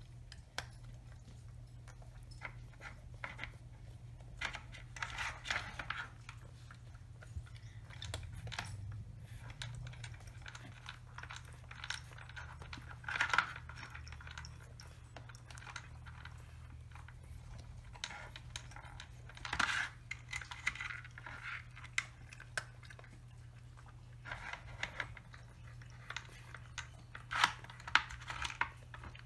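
Two cats working a plastic Nina Ottosson Rainy Day food puzzle for dry kibble: scattered clicks and rattles of the plastic pieces and kibble being nosed and pawed, with bits of chewing, in irregular clusters.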